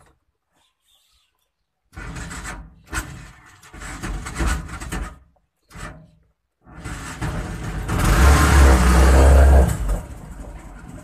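A 200cc rickshaw engine fitted in a Suzuki FX car being started. It is cranked in a few short bursts, catches about seven seconds in, runs loudest for a couple of seconds, then settles to a steady idle.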